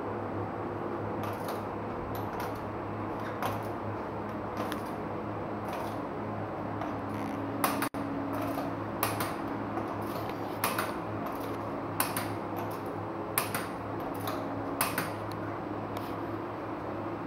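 Sharp metallic clinks every second or so, of tools and wheel parts being handled during a wheel change, over a steady low hum of workshop machinery.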